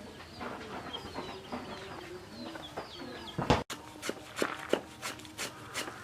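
Chickens clucking with small birds or chicks peeping. About halfway through there is a loud knock and a short break, followed by sharp knocks at about three a second.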